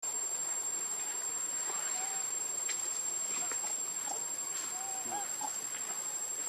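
Steady high-pitched insect drone in the forest, running unbroken, with a few short, arching calls and faint clicks.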